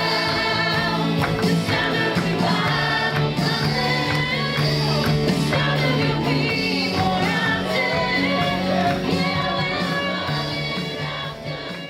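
Worship music with singing voices, beginning to fade out near the end.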